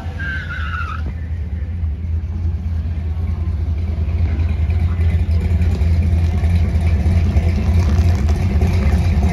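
Drag car's engine rumbling steadily at low revs amid its burnout smoke, growing gradually louder.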